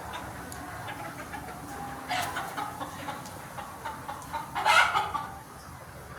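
Sonali hens clucking: many short clucks, with a louder call about two seconds in and the loudest near the end.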